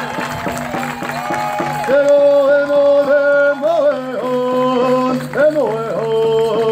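Music accompanying a hoop dance: long held, wavering sung notes over a steady drumbeat.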